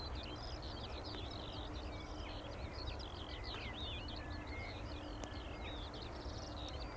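Songbirds singing busily, a dense run of quick chirps and warbled phrases, over a steady low rumble.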